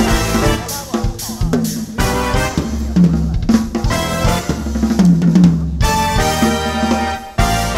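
A drum kit played fast and hard over a backing music track, with snare, bass drum and cymbal hits. There is a short break near the end before the kit and music come back in.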